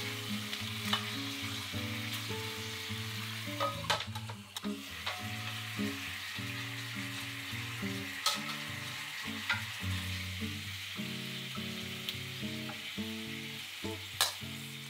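Block of beef searing in oil in a steel wok, sizzling steadily, with a few sharp metal clicks of tongs against the pan.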